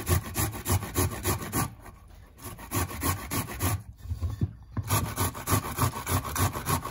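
Tomato grated by hand on the coarse side of a metal box grater: quick repeated scraping strokes, several a second, pausing briefly about two seconds in and again about four seconds in.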